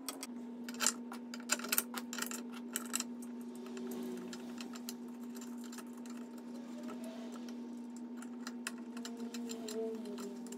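Metal clicks and light taps of an Allen key turning bolts into a wooden chair's leg brackets, thickest in the first three seconds and sparser after, over a steady low hum.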